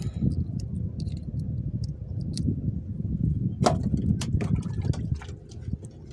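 Gusty wind rumbling on the microphone aboard a small open fishing boat, with scattered sharp clicks and knocks from handling the hand line and catch. The sharpest knock comes a little past halfway.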